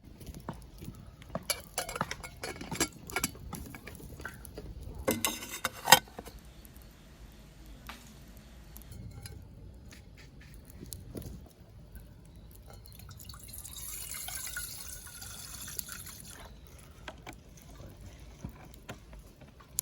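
Water being splashed and poured in a metal camp cooking pot, with scattered clicks and knocks of cookware; a sharp knock about six seconds in is the loudest moment, and a steady pouring hiss runs for a few seconds past the middle.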